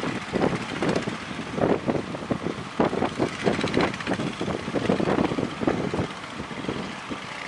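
Wind buffeting the microphone in irregular gusts, over the steady running of an engine.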